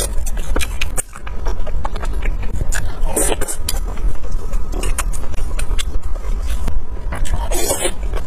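Close-miked chewing of skewered sausage and meat: many small clicks and mouth smacks over a steady low hum, with two louder bursts of sound about three seconds in and near the end.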